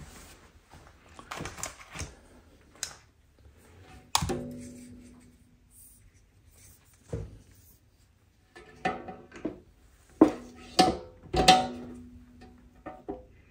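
Sharp knocks, clicks and clatter of IKEA Maximera drawer parts being handled as a long rail is picked up and set onto the drawer side. Several knocks ring on briefly; a cluster of the loudest comes near the end.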